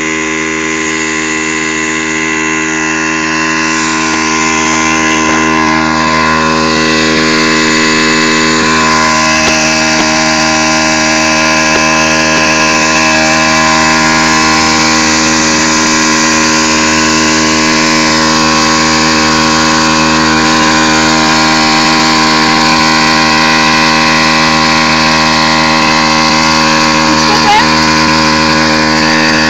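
Minibike's small air-cooled engine idling steadily at a constant speed.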